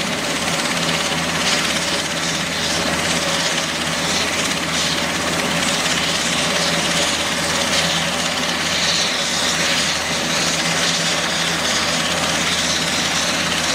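Super Puma-family twin-turbine helicopter running on the ground with its rotors turning: a steady turbine whine over rotor and engine noise, holding an even level throughout.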